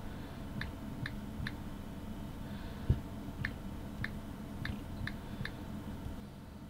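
Key taps on a smartphone's touchscreen keyboard as a username and password are typed: about ten short, sharp ticks, irregularly spaced, with one dull thump about three seconds in.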